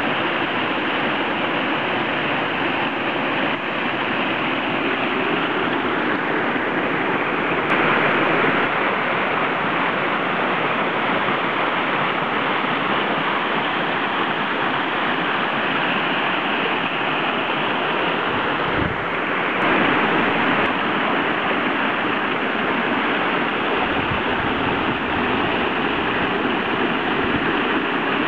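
A small waterfall on a woodland stream: water splashing and rushing over mossy rock in a steady, even wash of noise. It swells briefly louder about eight and twenty seconds in.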